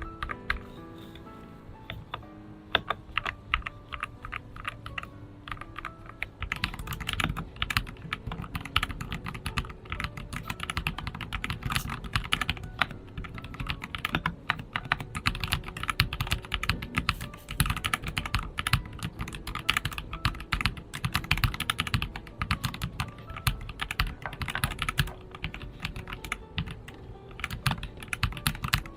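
Typing test on a Fopato 75% mechanical keyboard with TTC Neptune switches, a PC plate and silicone foam: key clacks, sparse at first and becoming a dense, fast stream about six seconds in. Soft background music plays under the opening seconds.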